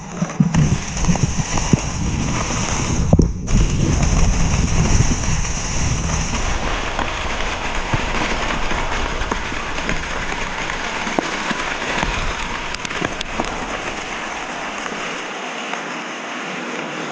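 Downhill mountain bike descending a rough trail: tyres rushing and crunching over dirt and rocks, with frequent sharp knocks and rattles from the bike. A heavy low rumble eases about halfway through.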